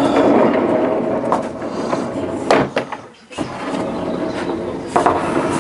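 Heavy fire-door-blank sliding door running along its home-made angle-iron and round-bar track. It rumbles one way, stops briefly, then runs back, with a knock about two and a half seconds in and another near the end as it meets its stops.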